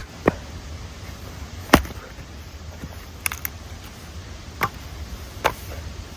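Hatchet chopping dead wood: a series of sharp, irregular knocks, about one a second.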